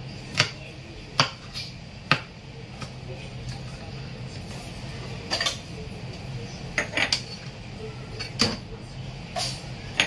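Chinese cleaver knocking on a plastic chopping board while mincing garlic, in single spaced strokes: three in the first two seconds, a pause, then a few more from about halfway. A low steady hum runs underneath.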